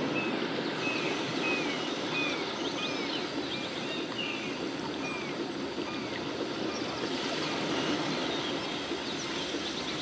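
Steady rushing of flowing water, like a stream, with a small bird giving short falling chirps a little more than once a second.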